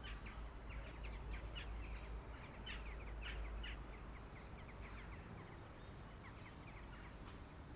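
Birds chirping: many quick, high chirps that thin out about five seconds in, over a faint steady low hum of street ambience.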